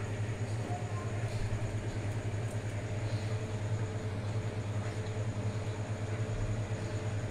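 Steady low hum of a running electric motor, with a few faint short scuffs over it.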